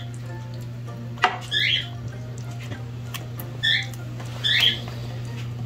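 Three short, high chirping calls, a second or two apart, over a steady low hum, with a single knock of a wooden spoon against a stainless steel roasting pan.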